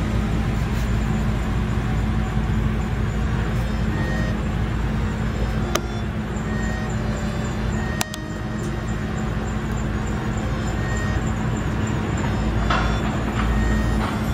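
Steady low rumble with a hiss over it, broken by two sharp clicks near the middle.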